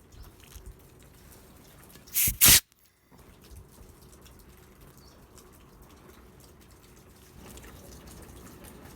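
Two quick, loud hissing blasts, such as spray or air blown through the small fuel passages of a disassembled carburetor being cleaned, with faint clicks of small parts being handled around them.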